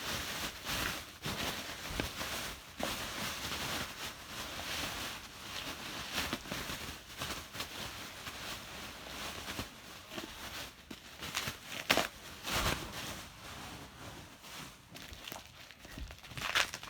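Rustling and handling noises, with a few sharp knocks near the end.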